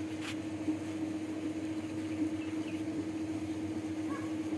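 Massey Ferguson 260 diesel tractor engine idling with a steady hum, and a single sharp click shortly after the start.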